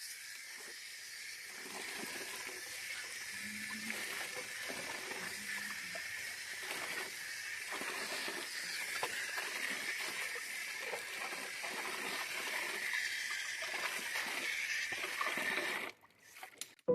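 Steady hiss of running water with small irregular splashes, starting suddenly and cutting off about a second before the end.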